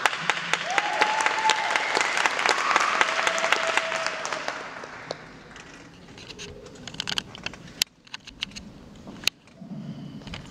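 Audience applauding, loud for about the first five seconds with a couple of long high calls over it, then dying away into scattered claps.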